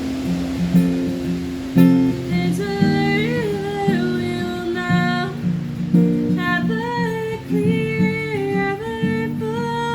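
A song sung to acoustic guitar: a single voice carrying the melody over strummed chords.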